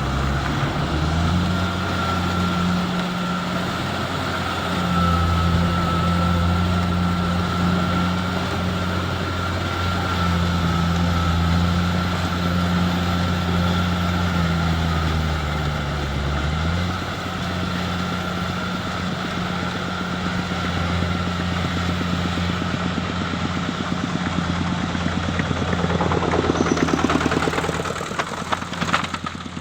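Rice combine harvester's engine running steadily, with a thin, steady high whine over it and a drone whose pitch shifts slightly a few times. Near the end a rapid mechanical clatter swells up.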